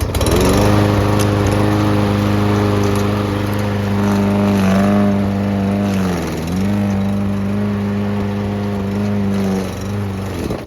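Garden shredder motor running loud and steady while grinding up potted plants and their soil, its pitch sagging briefly twice near the middle as it takes the load. The sound cuts off suddenly at the end.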